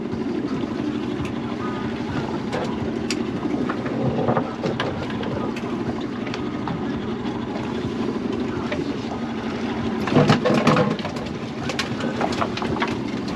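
Steady low rumble of a small fishing boat at sea, with wind on the microphone. A brief burst of knocks and clatter comes about ten seconds in.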